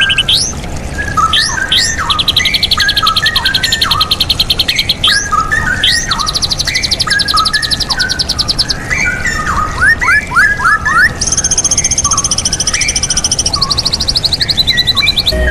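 Straw-headed bulbul (cucak rawa) song: a steady run of quick, sweeping whistled phrases, overlaid by long, very fast high-pitched trills that shift to a higher pitch about eleven seconds in.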